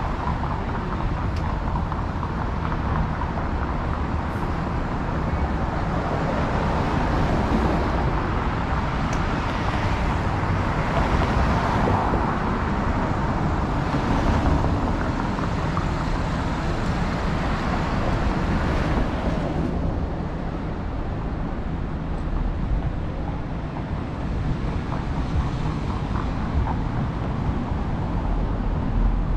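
City street traffic: cars going by, swelling louder in the middle and dropping off suddenly about twenty seconds in.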